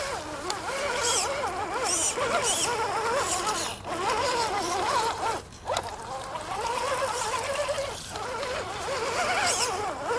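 Whine of a radio-controlled crawler truck's electric motor, its pitch rising and falling as the throttle changes, dropping out briefly twice near the middle.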